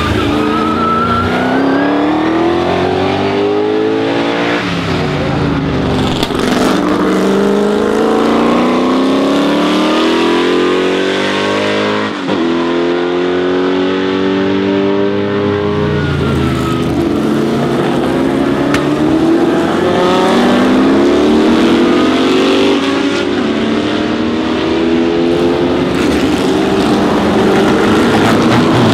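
Historic 1960s–70s sports-prototype race cars at racing speed, one after another and at times overlapping. Their engines climb in pitch under full throttle and step down with each upshift as they pass and pull away.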